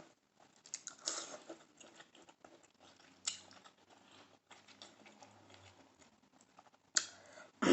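Close-miked eating sounds of shrimp: soft chewing with scattered small wet clicks and brief rustles, loudest about a second in, about three seconds in and near the end.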